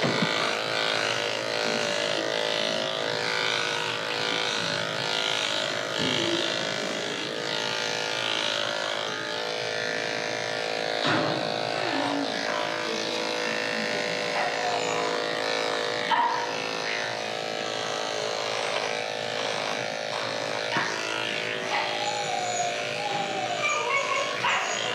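Electric dog grooming clippers running with a steady hum while shaving a terrier mix's thick coat short.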